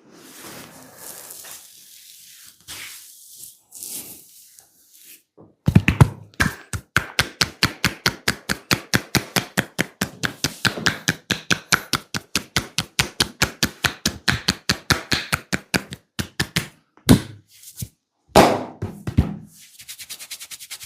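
Percussive massage strokes. Faint rubbing comes first, then a fast, even run of sharp slaps or taps, about four or five a second, for roughly ten seconds, then a few single strikes.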